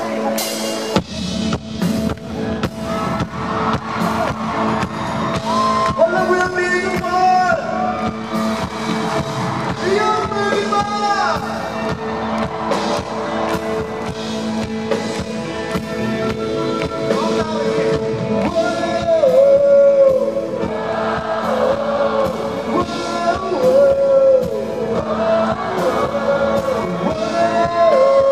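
Live pop band playing in a large arena: drums, guitars and keyboards, with a male voice singing the melody from about six seconds in.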